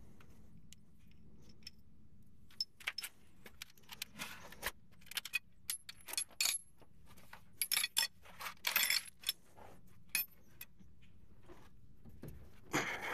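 Small metal hardware and hand tools clinking and jingling as they are handled, in irregular clusters of sharp clinks, with one more clatter near the end.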